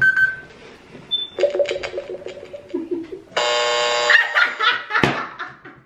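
Lie-detector game machine giving its verdict: a couple of short beeps, a pulsing electronic tone, then a loud steady buzz for about a second and a half, ending with a click. The buzz marks the answer as a lie.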